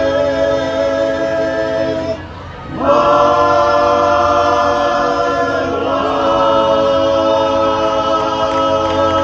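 Men's barbershop chorus singing a cappella in close four-part harmony, holding long chords to finish the song. One held chord breaks off about two seconds in, and after a brief breath a final chord swells in and is held, shifting slightly partway through.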